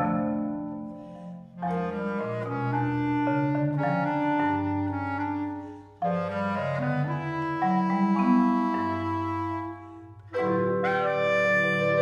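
Bass clarinet playing sustained low phrases over ringing marimba and vibraphone notes. Brief lulls come about 1.5, 6 and 10 seconds in, each followed by a fresh struck attack that starts the next phrase.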